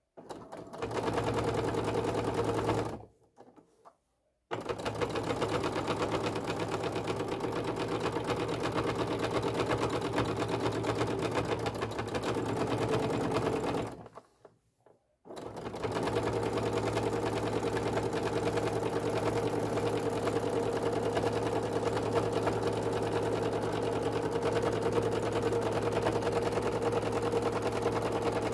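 Domestic sewing machine stitching fast and steadily during free-motion stitching, the needle going up and down in a rapid, even run. It stops twice for a second or so, about three seconds in and again about fourteen seconds in, then starts up again.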